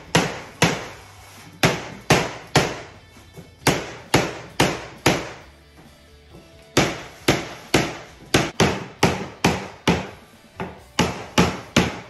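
Wooden beating block knocked against a large-format black porcelain floor panel to bed it down, in a steady run of sharp knocks about two a second, with a short pause in the middle. The tapping drives out the air under the panel, so a hollow knock turns into a high ting as the panel sets.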